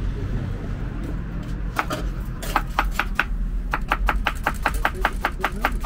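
Knife slicing an onion on a plastic cutting board: a few separate cuts, then quick, even strokes about five a second from a little past halfway.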